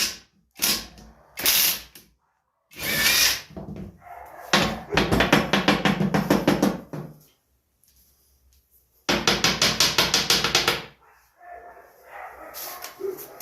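A rattling power tool, such as an impact wrench, run in several short bursts of fast, even strokes, working bolts loose on the tiller frame. The two longest bursts come about four and nine seconds in.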